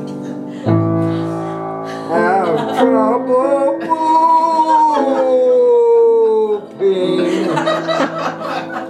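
Grand piano chords with an elderly man singing over them. A new chord is struck about a second in, and a long sung note slides down in pitch through the middle.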